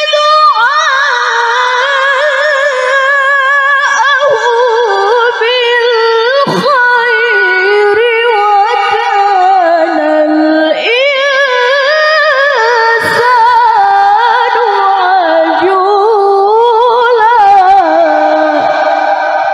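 A woman reciting the Quran in the melodic tilawah style, in a high, piercing voice: long melismatic phrases with quick trills and ornaments. The line sinks lower about halfway through, breaks briefly, then climbs back up.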